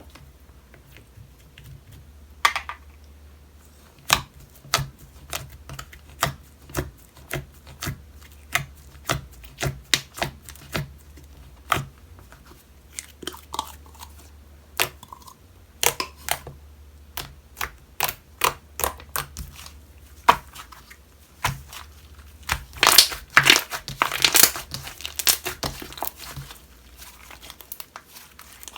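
Homemade slime being handled: a run of sticky pops and clicks, about one or two a second, then a denser crinkly crackling stretch about three quarters of the way through.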